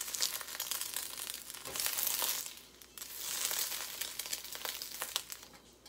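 Hot vegetable oil sizzling in a steel wok while a spatula scrapes and clicks against the pan. The sizzle swells and eases in waves and dies down near the end.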